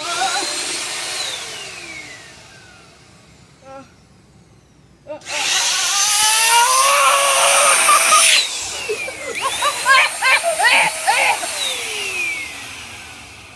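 Shark Euro-Pro handheld vacuum cleaner switched on, its motor whining and then winding down in a falling pitch. About five seconds in it starts again, louder, with a person yelling over it, and winds down again near the end.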